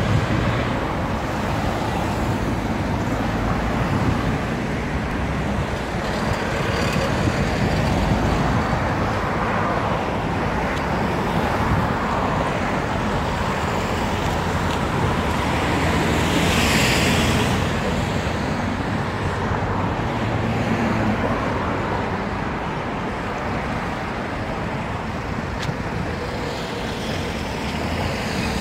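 Steady road traffic noise, with a louder swell of hiss about sixteen seconds in, like a vehicle passing close.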